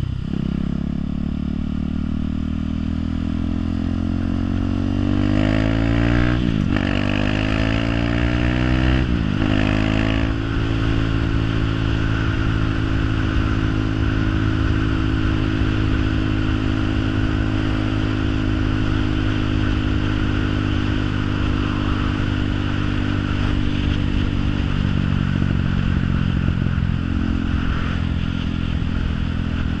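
An engine accelerating through the gears: its pitch climbs, drops sharply at a shift about six and a half seconds in, climbs again and drops at another shift near nine seconds, then holds a steady pitch.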